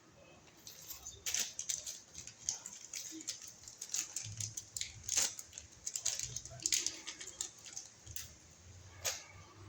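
Small metal hardware clicking and rattling as it is handled: washers and a screw being fitted onto a wall outlet's mounting, a string of irregular sharp clicks with a last single click near the end.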